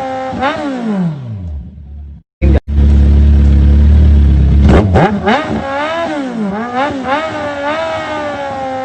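Kawasaki Ninja 1000's inline-four revving through an SC-Project CR-T titanium exhaust, the pitch rising and falling with each throttle blip and dying away after about a second and a half. After a brief dropout comes a very loud low rumble lasting about two seconds. Then the engine is blipped again several times, revs climbing and falling back.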